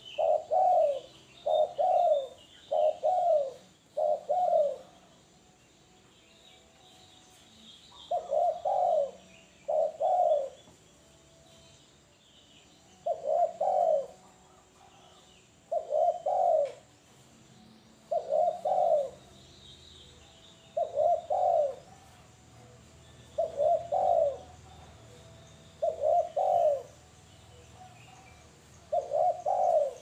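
Spotted dove (tekukur) cooing in repeated phrases: a quick run of five at first, then after a pause one phrase every two to three seconds. Faint chirps of small birds sound in the background.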